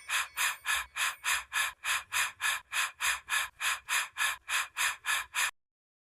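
Rapid, even panting breaths, about three a second, that stop abruptly about five and a half seconds in.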